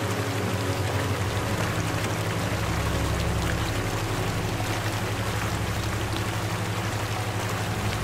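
Steady running-water sound, like a flowing stream, laid over a low sustained music drone whose bass notes shift about a second in and again near the end.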